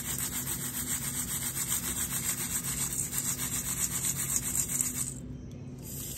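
Quick, even rubbing or scraping strokes, several a second. They stop abruptly about five seconds in.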